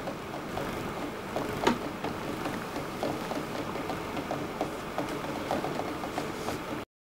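Water boiling in a saucepan on a stove: a steady bubbling hiss with a quick, irregular ticking rattle, and a sharper click about a second and a half in. The sound cuts out briefly at the very end.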